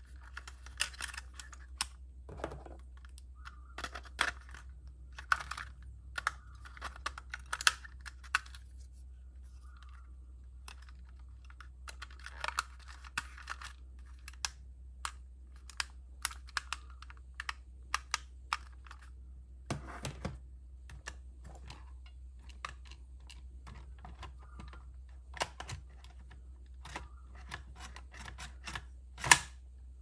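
Irregular plastic clicks, taps and short scrapes from handling a toy RC tank's plastic remote-control transmitter, with a sharp knock near the end.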